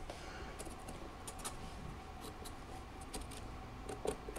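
Felt-tip marker making short, faint scratches and taps as it marks steel rivet heads on the metal tunnel panel, with a slightly louder tap near the end.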